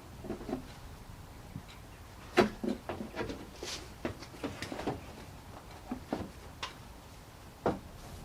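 Irregular clicks and knocks of a hard plastic headlight unit being handled and worked into its mounting points on a car's front end, the loudest knock about two and a half seconds in.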